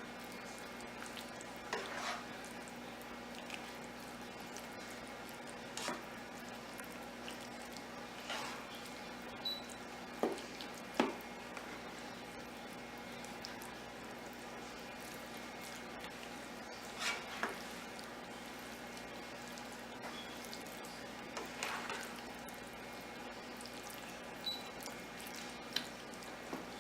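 Spoon stirring a thick, wet casserole mix of chicken, wild rice and gravy in a bowl: short squelches and scrapes every few seconds over a faint steady hum.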